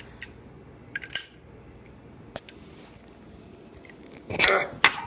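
Zippo lighter's metal insert being pulled from its tight-fitting case: a few light metallic clicks and a ringing clink about a second in, then a louder metal-on-metal scrape near the end as the insert comes out.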